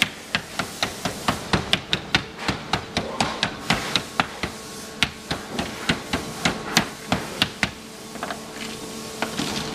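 Hard plastic cabinet legs clacking and knocking as they are handled by hand and stood on a work table: sharp, separate clacks about two or three a second, thinning out near the end, over a faint steady hum.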